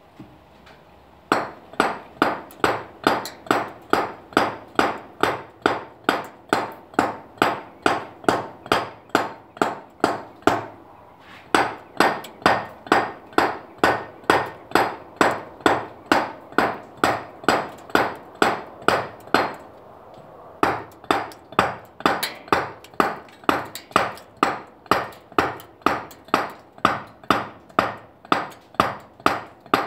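Stone carver's dummy mallet striking a chisel into a limestone block in sharp, regular blows, about three a second. The blows start just over a second in and come in three steady runs, with two short pauses about a third and two-thirds of the way through.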